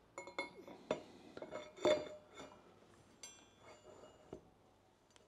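Steel motorcycle rear brake disc being slid by hand onto the rear axle at the hub: a string of light metallic clinks and taps, the loudest about two seconds in, with a short metallic ring a little after three seconds.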